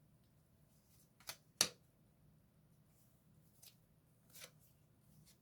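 Tarot cards being handled: a light card snap followed at once by a sharper, louder one about a second and a half in, then two fainter card rustles.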